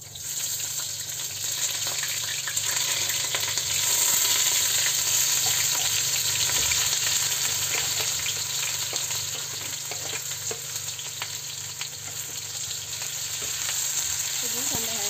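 Sliced garlic, ginger, chili and onion sizzling in hot oil in a stainless steel wok, stirred with a wooden spatula that scrapes and taps against the steel. The sizzle starts suddenly as the garlic goes in and is loudest a few seconds later.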